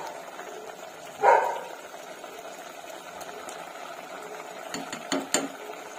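A dog barks once, sharply, about a second in, over the steady bubbling of curry simmering in a pressure cooker pot. Near the end come a few quick clicks of the steel ladle knocking the pot.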